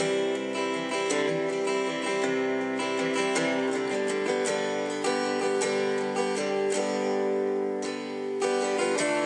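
Instrumental music with strummed acoustic guitar, between sung lines of the song.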